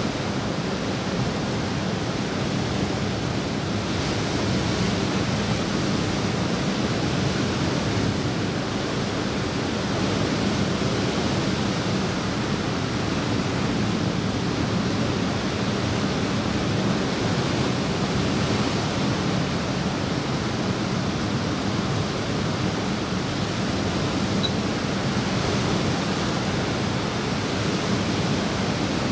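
Steady, even rush of water, with no single drips, splashes or wave swells standing out.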